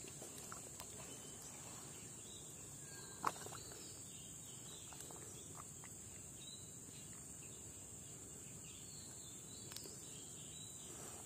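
Steady high-pitched chorus of insects, with a single short click about three seconds in.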